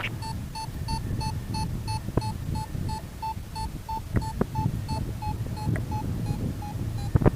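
Electronic beeper sounding a short, steady-pitched beep over and over, about three times a second. A few sharp clicks and a low wind rumble run under it.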